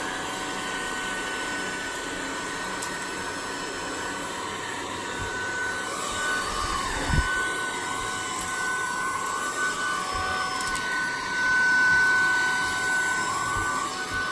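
Tineco cordless vacuum running with a steady high whine and a second, lower tone that wavers up and down as the vacuum is moved about. There is a brief dip and a single knock about halfway through.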